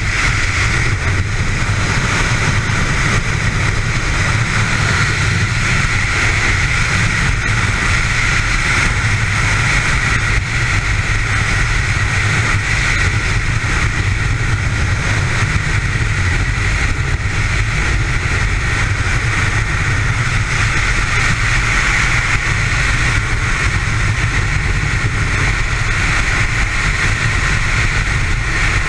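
Loud, steady rush of freefall wind over the camera's microphone during a skydive, a low rumble with a constant higher hiss that never lets up.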